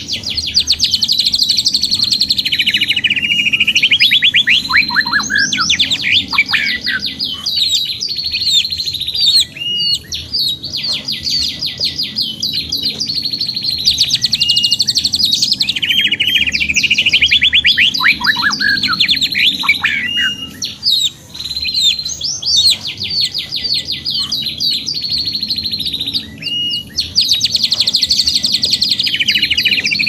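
Domestic canary singing a long, almost unbroken song of fast rolling trills and repeated note series, some phrases sweeping down in pitch.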